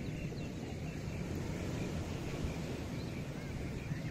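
Beach ambience: a steady low wash of ocean surf, with faint high chirps scattered through it.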